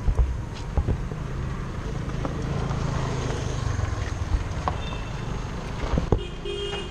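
Low, steady rumble of a nearby car engine in street traffic, swelling a little through the middle, with a few short knocks. A brief steady tone sounds near the end.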